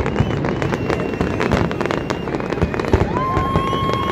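A large fireworks display, with many shells bursting in quick, overlapping succession and a continuous crackle and banging. A steady high tone joins about three seconds in.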